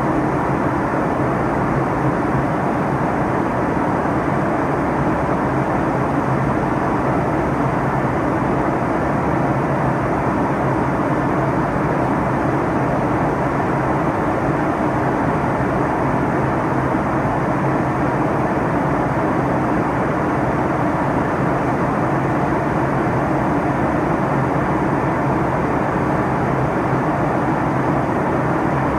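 Steady drone of an airliner in flight heard from inside the passenger cabin: even engine and airflow noise with a low hum underneath, unchanging throughout.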